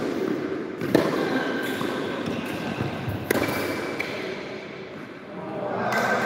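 Tennis ball struck or bounced on an indoor hard court: two sharp knocks, about a second and about three seconds in, over a steady background noise in the hall.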